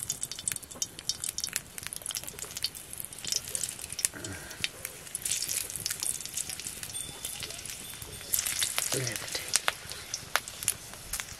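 Hot oil sizzling and spitting in an iron wok as dried red chillies fry in it, with many sharp crackles. The sizzle swells twice, about five and eight seconds in, as more chillies go into the oil.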